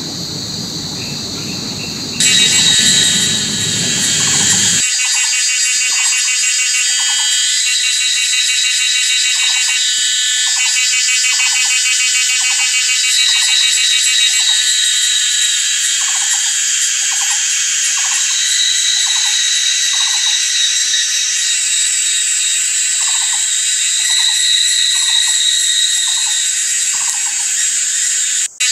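Night chorus of insects and frogs: a dense, steady high-pitched buzzing and trilling, with short calls that drop in pitch repeating about once a second. A low rumble underlies the first few seconds and then stops.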